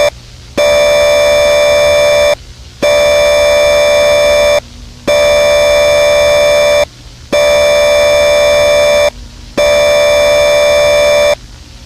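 Emergency alert system test tone: a loud electronic chord of several steady pitches, sounded in five blasts of about two seconds each with short gaps of about half a second between them.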